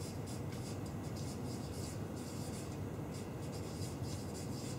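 Marker pen writing on flipchart paper: a run of short, irregular scratchy strokes over a steady low room hum.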